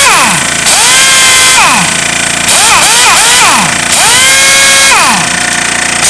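Electronic background music: swooping synth tones that rise, hold and fall away, repeating roughly every second, over a steady loud backing.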